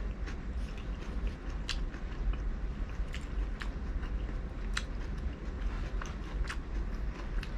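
A person chewing grilled seafood, with irregular sharp, wet clicking mouth sounds over a steady low hum.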